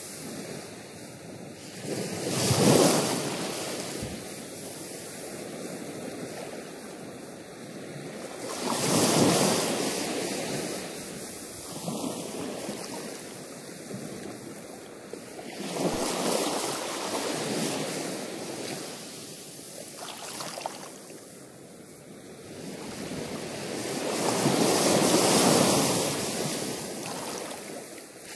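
Ocean surf breaking against a rocky shore, rising and falling in four big swells several seconds apart.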